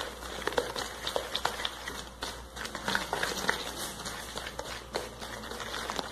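A spatula stirring thick cornmeal cake batter in a bowl, working in freshly added wheat flour. It makes irregular soft scrapes, knocks and wet slaps against the bowl.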